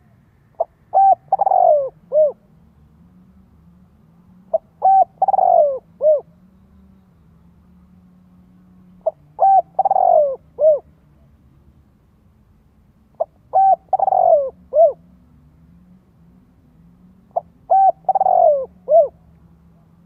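Spotted dove cooing its song five times, about every four seconds. Each phrase is a couple of short notes, then a longer coo that falls in pitch, then a short closing note.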